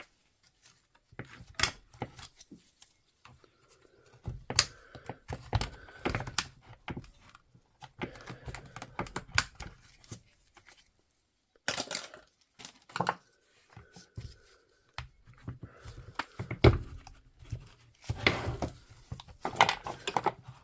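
Irregular clicks, knocks and short scrapes of hands handling the opened plastic housing and internal parts of a Dewalt DCH253 cordless SDS hammer drill during disassembly, with a couple of short pauses and busier handling near the end.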